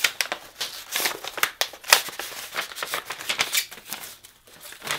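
Paper and cardboard packaging rustling and crinkling in the hands: a quick run of short, scratchy sounds as a small mailer holding a screen protector is opened, easing off briefly near the end.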